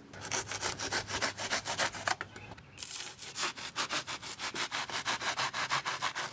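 Serrated kitchen knife sawing through cured expanding spray foam in quick back-and-forth strokes, several a second, with a brief pause about two seconds in before the sawing resumes.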